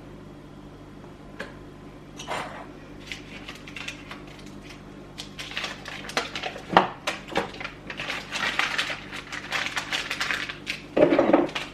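Kitchen clatter of a saucepan and utensils, with clicks and rustling, as a block of Copha is unwrapped and put in the pot to melt. It is sparse at first, gets busy about halfway through, and ends with a louder knock.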